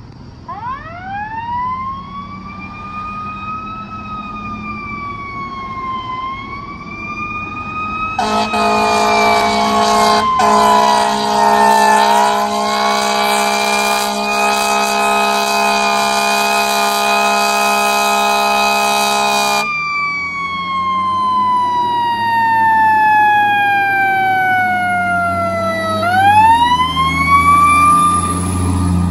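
Fire engine siren wailing, its pitch rising and falling in long glides, with a slow wind-down and a quick wind back up near the end. A long steady air-horn blast sounds over it for about twelve seconds in the middle. Near the end the truck's heavy engine rumbles as it passes close by.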